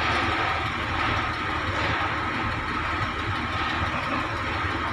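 Vibratory pile hammer running on top of a 1650 mm steel casing, driving it into the ground. A steady mechanical drone with rapid low pulsing and a steady high whine above it.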